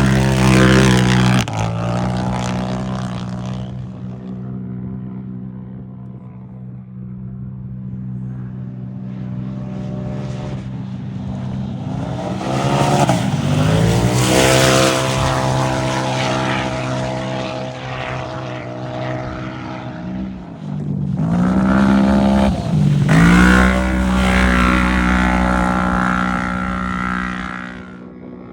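Off-road racing UTV engines running hard at high, steady revs. The engine pitch dips and climbs back about halfway through and again near three quarters through, and the sound swells as vehicles come close at the start, in the middle and late on.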